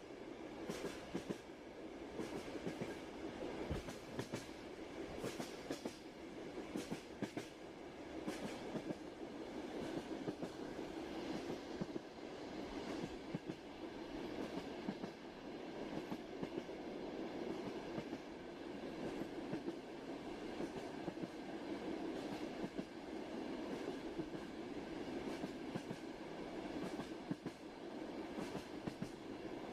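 A train running steadily on the rails: an even rolling rumble with irregular clicks and knocks of the wheels over the track, more frequent in the first few seconds.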